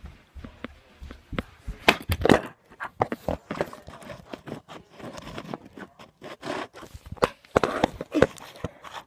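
Handling noise on the recording device's microphone: irregular clicks, knocks and scuffing rubs as fingers move over it and it is shifted about and set down on the floor.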